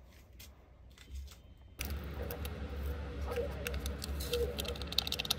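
Hands handling small objects at a counter: a run of small clicks and taps with crinkly rustling, over a steady low hum. The first two seconds are quiet room tone with a few faint clicks before the handling starts abruptly.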